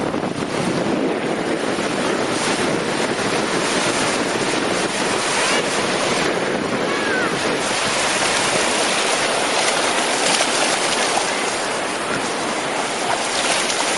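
Sea surf washing onto the beach in a steady rush, with strong wind buffeting the microphone.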